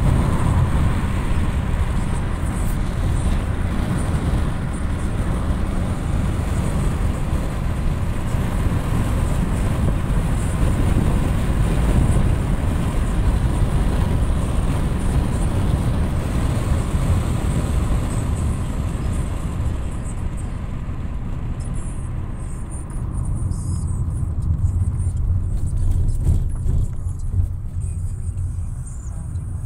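Steady road noise of a moving car, heard from inside: a low rumble of tyres and engine with a hiss on top. About two-thirds of the way through, the hiss fades and the sound turns duller and slightly quieter.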